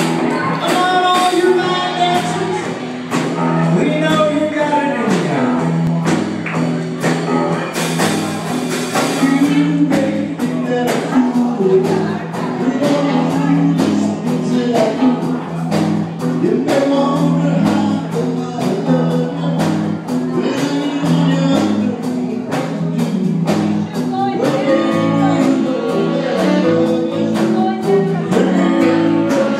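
A live band playing in a hall: electric guitars and a drum kit keeping a steady beat, with singing.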